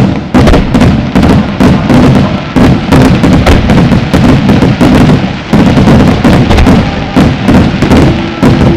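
A rapid barrage of aerial firework shells bursting, with several sharp bangs a second, starting suddenly. Music plays underneath.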